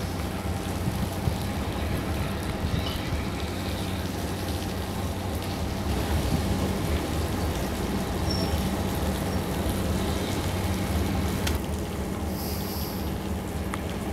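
Diesel train engine idling with a steady low hum.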